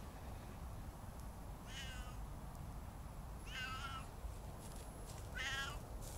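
Siamese cat meowing three times, each call about half a second long, the last two louder and longer than the first.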